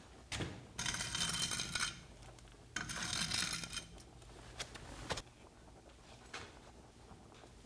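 Handling noises: a knock, then two rustling, rattling spells about a second each, then a few sharp clicks.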